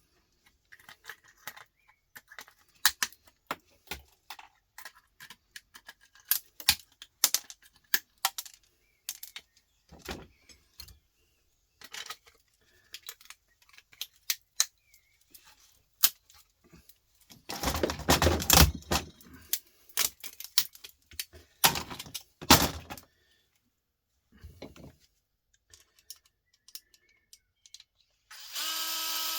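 Small metal parts and tools clicking and clinking as an electronics board is taken apart by hand, with two longer rattling, scraping spells past the middle. Near the end a power drill starts whirring with a steady pitch.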